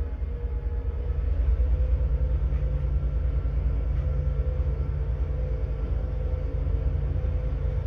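Steady low rumble of a passenger train carriage heard from inside the car, with a steady hum over it. It grows a little louder about a second in.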